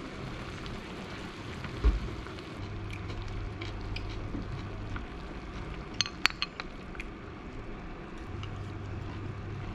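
Broth of an offal hotpot bubbling in an electric hot pot, a steady hiss, while a ladle scoops from it: a dull knock about two seconds in and a few sharp clinks of the ladle against the pot and a ceramic bowl around the middle.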